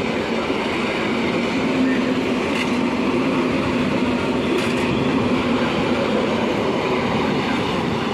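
An EN71 electric multiple unit running past close by: a steady rumble of wheels on the rails, with a low hum under it through the middle of the pass.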